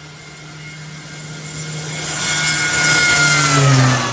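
Small turboprop airplane at full power on its takeoff run, growing louder as it nears. It passes close by near the end, with its engine whine and propeller tone dropping in pitch as it goes past.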